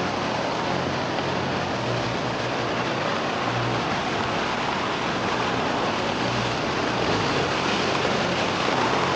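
Steady rush of river water running over rocks, a continuous even hiss.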